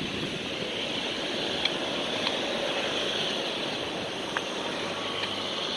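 Steady outdoor city background noise: a hiss of wind and distant traffic, with a few faint clicks.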